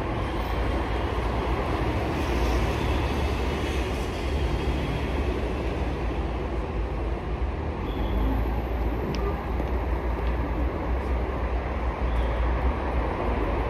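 Steady street noise: a constant low rumble under an even hiss, with no distinct events.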